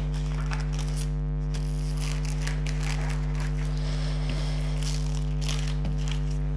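A steady low hum runs throughout, with faint rustling of a diamond painting canvas and its plastic film as it is smoothed flat by hand.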